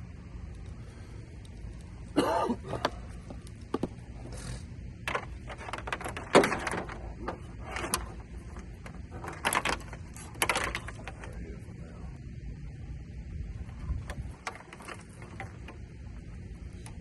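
A series of short handling noises (scrapes, rustles and clicks) from hands working parts and wiring in a car's engine bay, over a steady low rumble. The noises come thickest in the first two thirds, then thin out to a few small clicks.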